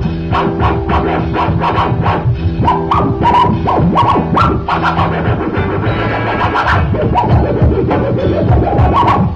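Electronic background music with DJ record-scratch effects over a quick, steady beat.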